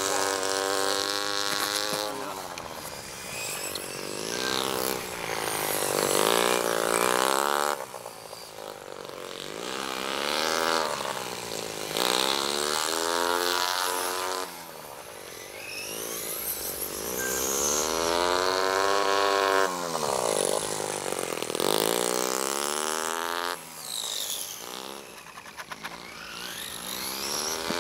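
Nitro RC motorbike's two-stroke OS 20 glow engine, high-pitched and buzzing, revving up and falling off again and again, its pitch rising and dropping every few seconds.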